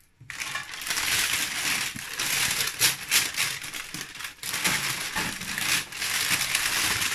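Baking paper crinkling and rustling as it is gathered up around a batch of small baked rolls and lifted off a metal baking tray, with sharper crackles here and there. It starts a moment after a short quiet at the beginning.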